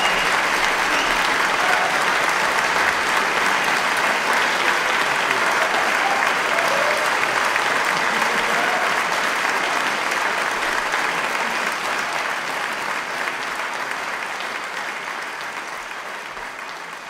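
Audience applauding steadily, then slowly fading out over the last several seconds.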